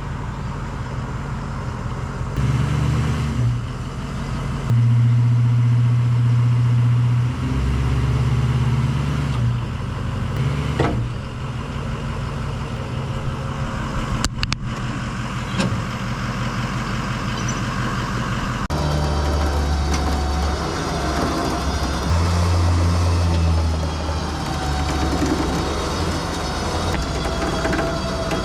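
A heavy vehicle's engine running, its revs stepping up and down as it works, with a couple of sharp knocks partway through.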